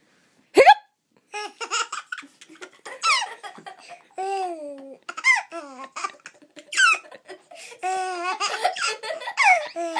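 A young child hiccups once, loudly and sharply, then laughs in repeated high-pitched bursts of giggling.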